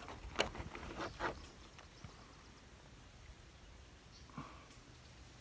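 Quiet outdoor background with two short, sharp clicks about half a second and a second in, and a fainter click later. No shot is fired.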